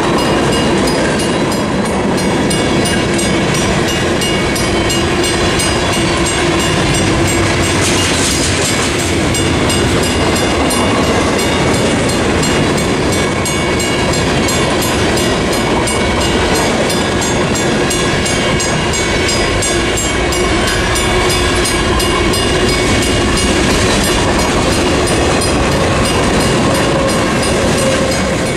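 Freight train cars rolling through a grade crossing: a steady rumble of wheels on rail with clickety-clack over the rail joints. A mechanical crossing bell rings in fast, regular strokes over it.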